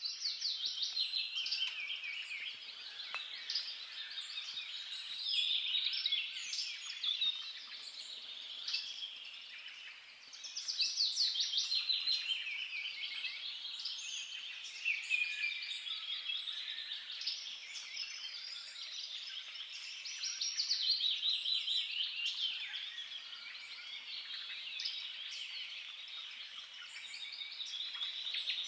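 Songbirds singing in a dense, continuous chorus of many overlapping rapid trills and chirps.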